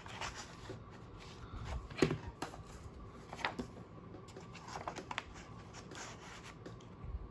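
Paper inserts being slid and lined up in a six-hole punch: soft rustling with a few light taps and clicks, the sharpest about two seconds in.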